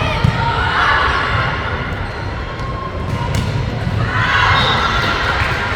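Echoing gymnasium din during a volleyball rally: a ball thuds sharply about a quarter second in, and players and spectators shout over a steady crowd rumble.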